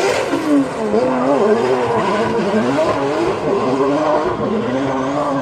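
Drift car's engine revving hard and repeatedly rising and falling in pitch as it slides through a corner, with tyre squeal from the sliding wheels.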